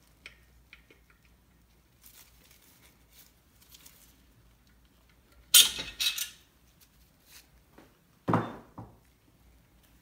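Engine main bearing caps being set onto their studs in the block, metal on metal: a few light clicks in the first second, two sharp metallic clanks about halfway, then two duller knocks near the end.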